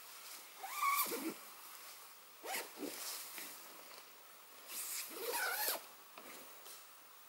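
Tent door zipper pulled in three short runs, each a brief rasp that rises and falls in pitch.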